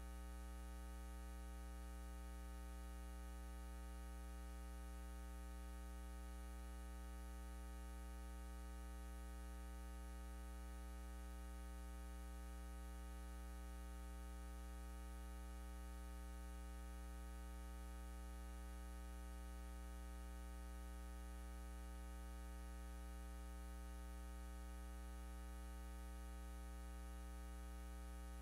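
Steady electrical mains hum and buzz: a strong low hum with a long row of higher overtones, unchanging throughout.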